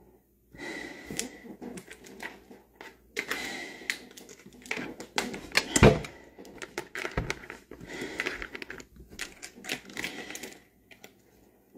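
Handling noise from a full-face respirator with twin filter cartridges being loosened at the head straps and pulled off over the head: a run of irregular clicks and rustles, with one loud knock about six seconds in.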